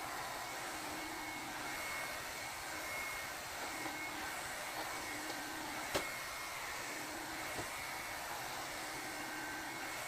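Ola 2-in-1 hair dryer brush running steadily while being drawn through hair: an even blowing hiss with a faint motor whine. One sharp click about six seconds in.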